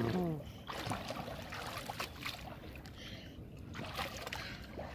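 Swimming-pool water sloshing and lapping as children swim close by, with small irregular splashes.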